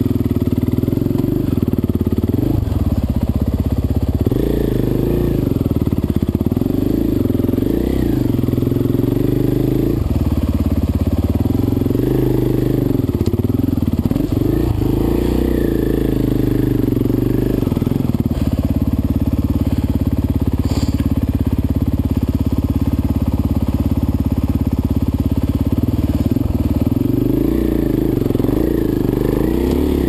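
Dirt bike engine running steadily at low revs, its pitch rising and falling again and again with the throttle.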